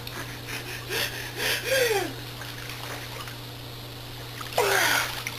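Water splashing in a swimming pool as swimmers move and duck under, with short voice exclamations about a second in and a louder splash with a falling cry near the end.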